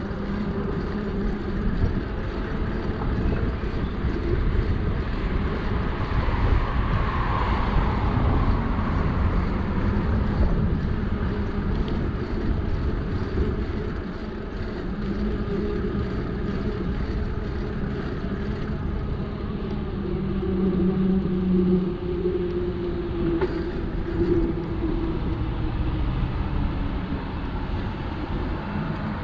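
Steady rumbling road and wind noise from a bicycle ride along a road, with a low drone that swells and fades a few times.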